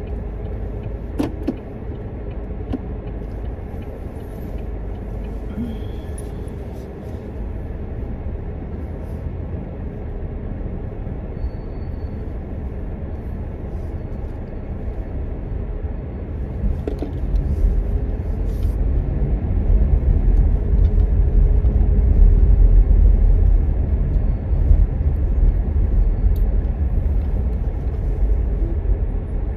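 Cabin noise of a moving car: a steady low rumble of engine and tyres on the road. It grows louder a little past the halfway point and eases again near the end.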